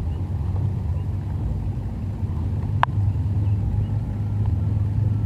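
An engine running steadily at a low, even hum, a little louder in the second half, with a single sharp click just before the middle.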